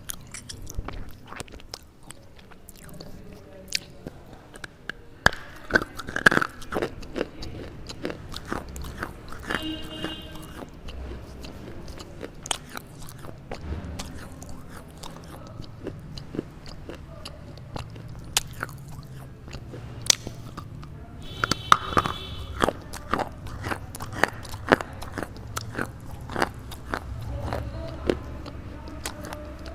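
Dry crunching of a red slate-pencil clay bar between the teeth: repeated sharp bites and chews. The loudest cracks come about six seconds in and again a little past twenty seconds.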